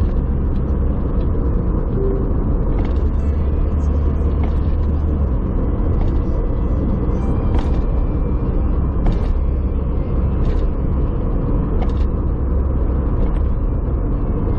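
Toyota HiAce van on the move: a steady low road-and-engine rumble, with scattered light clicks now and then.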